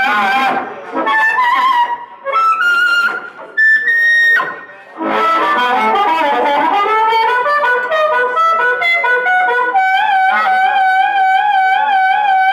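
Blues harmonica solo over acoustic guitar. It plays short broken phrases at first, then runs of notes, and near the end settles on a long held note with a steady wavering vibrato.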